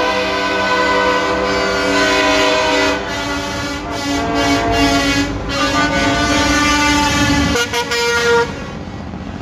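Several semi-truck air horns sound together in overlapping, sustained chords. The mix of tones shifts about three seconds in and again near seven and a half seconds, and the horns cut out shortly before the end, over the low rumble of the passing trucks.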